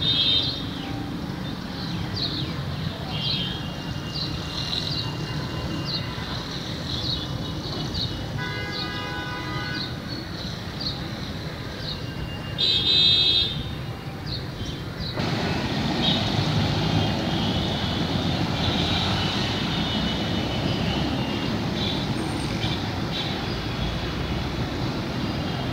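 Steady city traffic rumble with vehicle horns: one toot lasting about two seconds, then a shorter, louder honk about halfway through. A short high chirp repeats a little faster than once a second at the start, and the traffic noise grows louder from about halfway on.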